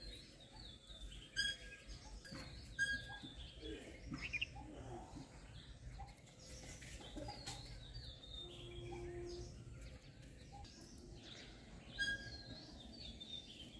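Birds chirping and calling outdoors, with one bird repeating a short, sharp call a few times.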